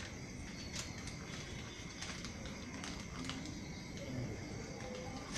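Thin plastic carry bag crinkling in a few short rustles as it is handled, over a steady background hiss with a faint steady high tone.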